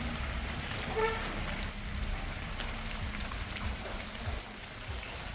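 Heavy monsoon rain falling: a steady hiss with scattered drop ticks over a low rumble. A brief pitched note sounds about a second in.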